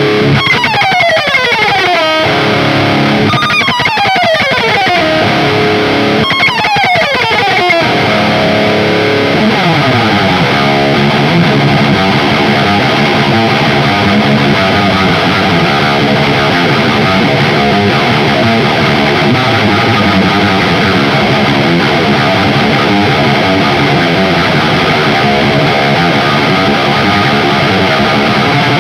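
Electric guitar with distortion through Ibanez STD C1/C2 passive humbucker pickups. It plays three fast descending runs in the first eight seconds, then continuous riffing.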